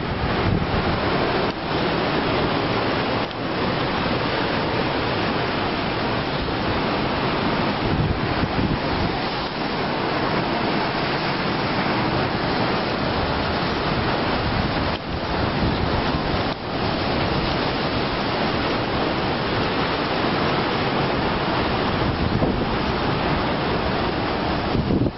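Sea surf breaking on a rocky shore, a steady rushing wash, with wind blowing on the microphone.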